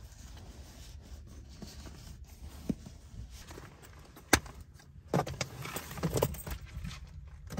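Objects being handled: scattered clicks and knocks, with a burst of rattling clicks about five seconds in, over a low steady rumble.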